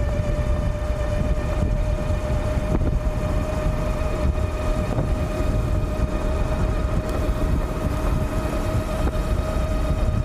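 48V 1000W mid-drive e-bike motor whining steadily at full power, its pitch creeping slightly higher as the bike accelerates toward about 60 km/h. Heavy wind rumble on the microphone from the speed runs underneath.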